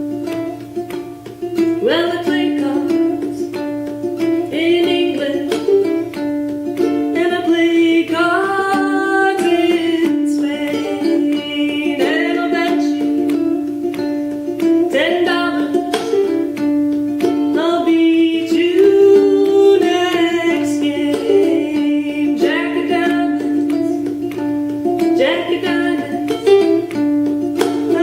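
Solo ukulele played clawhammer style, picking an old-time folk melody in quick plucked notes over a steadily ringing drone note.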